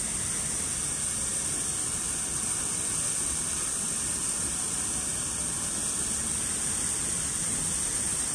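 Steady outdoor background hiss, strongest high up, over a faint low rumble; no distinct sound stands out and the wolf's steps are not heard.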